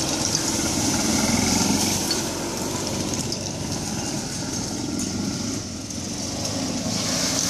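Golf cart's small petrol engine running steadily, a little quieter in the middle and louder again near the end.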